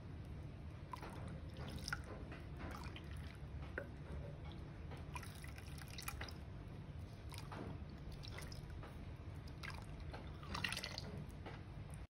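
Liquid poured from a small bowl into a pot of foamy liquid soap mixture, dripping and splashing in irregular spurts, with louder splashes around two, five, seven and ten seconds in. A low steady hum sits underneath.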